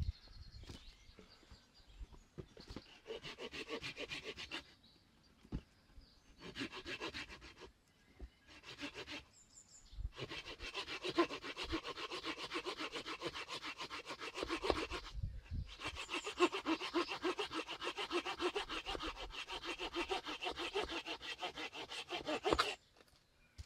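Small hand saw cutting through a wooden stick held on a chopping block, quick back-and-forth rasping strokes. It goes in short spells at first, then saws steadily for about twelve seconds with a brief pause midway, and stops shortly before the end.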